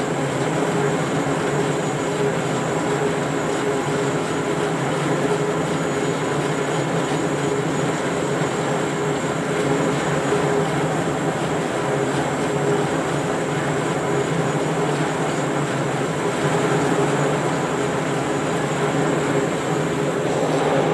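Large industrial electric motor and the machine it drives running steadily: a loud, even drone with a constant hum.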